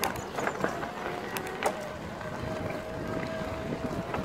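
Electric mountain bike riding over a gravel track: tyres crunching, with sharp clicks and rattles from the bike over stones, mostly in the first two seconds, over a steady motor whine.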